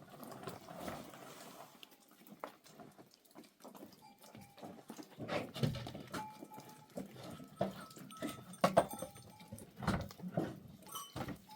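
Irregular animal calls mixed with scattered knocks and rustling.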